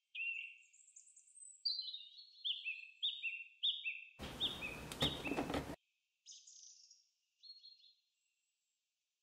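Bird chirping in a run of short, quick, whistled notes that step down and back up in pitch, with a burst of crackly noise for about a second and a half from about four seconds in.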